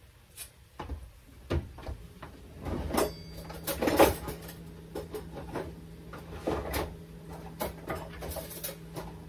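Scattered knocks and clunks of kitchen things being handled at a counter, the loudest about four seconds in, with a steady low hum that starts about three seconds in.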